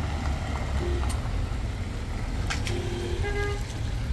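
Street traffic with a steady low engine rumble and short vehicle-horn toots: a brief one about a second in, then two more in quick succession near the end. Two sharp clicks stand out, around one and two and a half seconds in.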